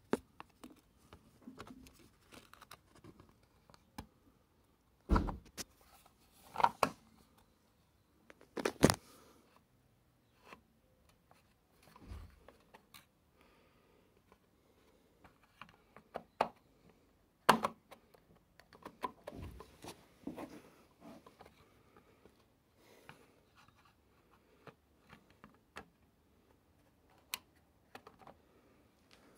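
Irregular clicks, scrapes and rustles close to the microphone, with sharp knocks about 5, 7 and 9 seconds in and again near 17 seconds: handling noise.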